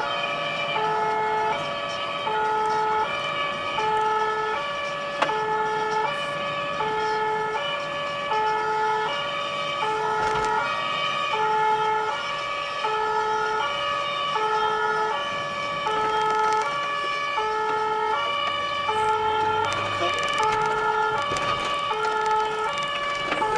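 Two-tone emergency siren of a fire brigade officer's car on an emergency run, switching steadily between a low and a higher note about every half second, heard from inside the car.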